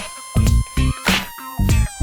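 Background music: an electronic track with a steady thumping beat and synth tones that slide up and down in pitch.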